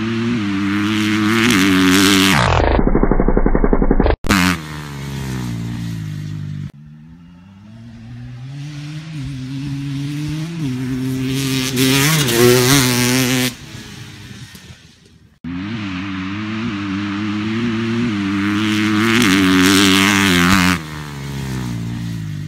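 Dirt bike engines, a 2012 KTM 250 XC-W two-stroke and a 2015 Kawasaki KX250F, accelerating hard past the microphone in several short cut-together runs. The pitch climbs in steps with each upshift. Early on there is a short stretch of slowed-down, low-pitched engine sound, and about 12 s in the orange KTM revs up through the gears on a wheelie.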